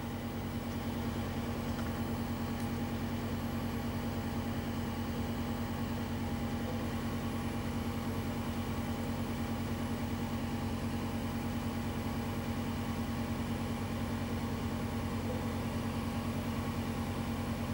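Steady hum of the Stirling engine test rig's fuel burner running, several constant tones over a fluttering low rumble, while the engine itself stands still under about 8.6 bar of pressure.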